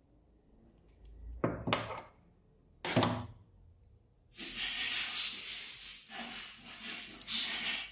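Parts handled during a cup sealing machine repair: a few sharp knocks, one louder knock about three seconds in, then several seconds of rustling, scraping noise that swells and dips.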